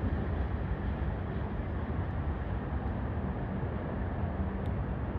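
Freight train rolling past, a steady low rumble with no distinct clanks or horn.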